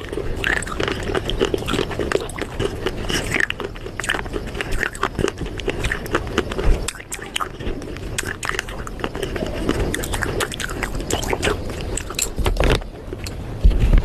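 Close-up crunching and chewing of hard, brittle pieces of fired clay pot, many sharp crackles as they break between the teeth.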